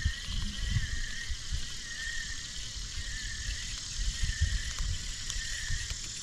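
Wind buffeting the microphone in uneven gusts, over a steady high-pitched evening chorus of frogs and insects that swells and dips about once a second.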